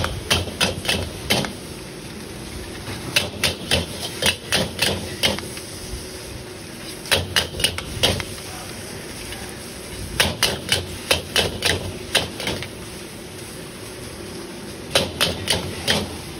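Metal wok ladle and spatula clanking and scraping against a large iron wok as fried noodles are tossed, in five quick bouts of several strikes each, with a steady noise underneath.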